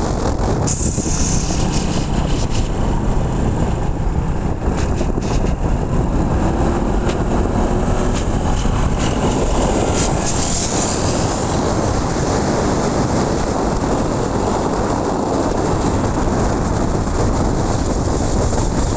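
Small generator engine running steadily on a motorised bicycle, with road and wind rumble mixed in.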